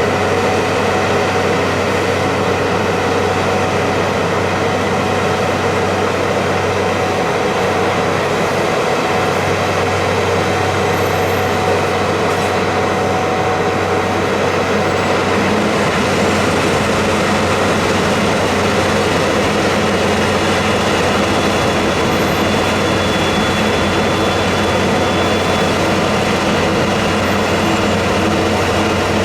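Heavy vehicle running steadily, a constant engine drone with a few held tones and no change in level.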